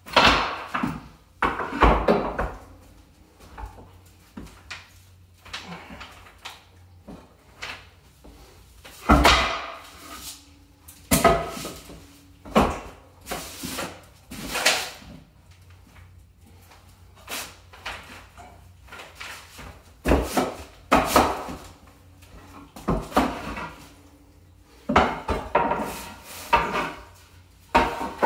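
Scrap wood blocks and boards being picked up, shifted and set down, a string of irregular wooden knocks, clunks and scrapes, a few of them louder.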